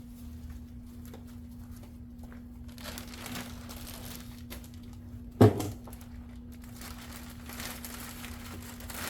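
Faint crinkling and rustling handling noises, with one loud thump about halfway through, over a steady hum.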